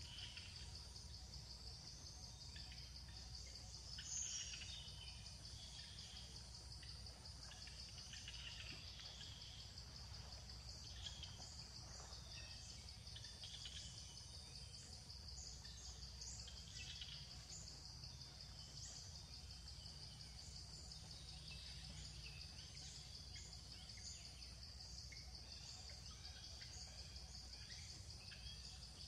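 Faint outdoor ambience: a steady high insect drone with scattered short high chirps and a low background rumble.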